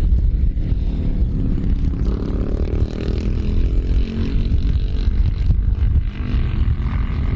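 Britten V1000 V-twin racing motorcycle engine running loud, its pitch rising and falling as it is revved through the middle.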